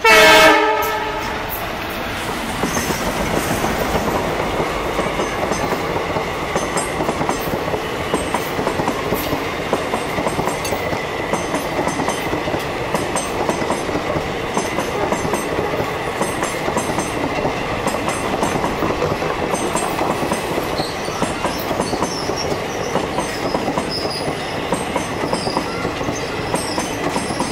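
An ALCO diesel locomotive sounds a short, loud horn blast, then runs past, and its passenger coaches follow in a steady clickety-clack of wheels over rail joints.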